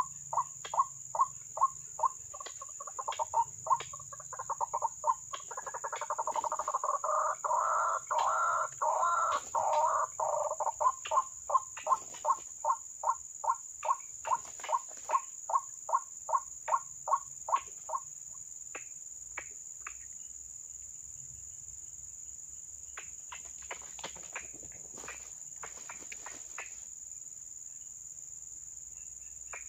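White-breasted waterhen (ruak-ruak) calling: a loud, evenly repeated croaking note about twice a second. It swells into a dense overlapping chorus for a few seconds and stops about two-thirds of the way in. A steady high insect drone runs underneath throughout.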